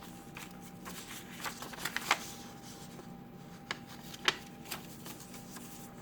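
Paper pages and small cards of a handmade junk journal being handled and turned: light rustles and sharp paper taps, the sharpest about two seconds in and again around four seconds. A faint steady hum lies underneath.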